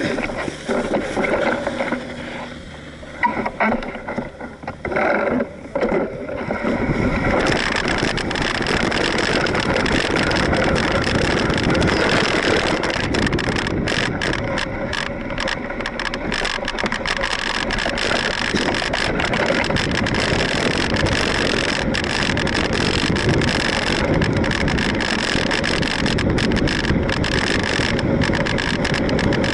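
Mountain bike rolling over a dirt and gravel trail, picked up by a handlebar-mounted camera: a rushing noise of tyres on the rough surface with frequent clicks and rattles from the bike. It is patchy and uneven for the first several seconds, then about seven seconds in becomes a steady, dense rush as the bike picks up speed.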